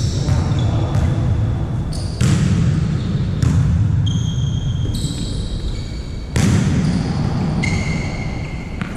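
Indoor volleyball play: ball strikes that start suddenly at several points, and high sneaker squeaks on the court, over a steady hall noise.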